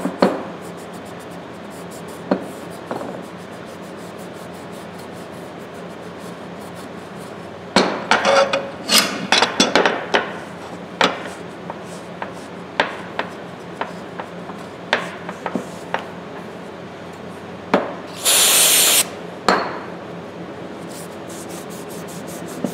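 A cloth rubbing over the steel of Channellock tongue-and-groove pliers, with scattered clicks and knocks as the metal pliers shift on the slab. About 18 seconds in comes a hiss of about a second from an aerosol can of carburetor cleaner spraying.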